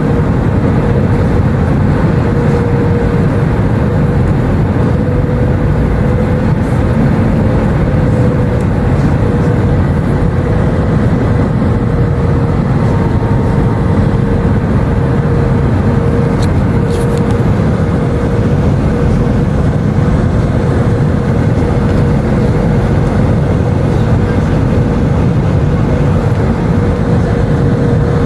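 Steady engine and airflow noise heard inside the cabin of an Airbus A319 in flight, with a steady mid-pitched tone running through it.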